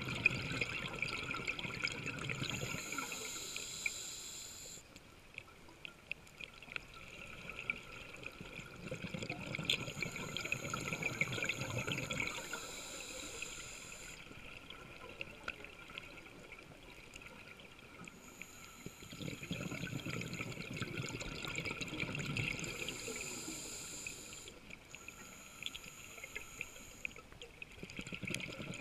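Scuba diver breathing through a regulator underwater: a hissing inhale alternates with a burst of bubbling on each exhale, about three slow breaths. Heard through the camera housing.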